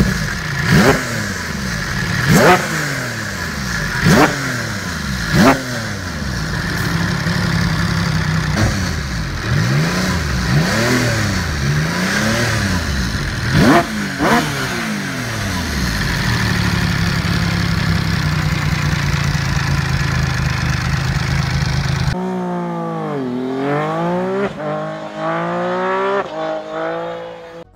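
Horex VR6 motorcycle's 1,218 cc six-cylinder VR engine revved in neutral with sharp throttle blips, then held at high revs. Its note sounds closer to a traditional V6 than to an inline six. Near the end, after a cut, a ride-by in which the engine note dips and then climbs in steps as it accelerates through the gears.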